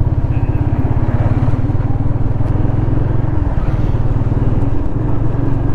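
Motorcycle engine running steadily under way, its firing pulses even, with road and wind noise over it.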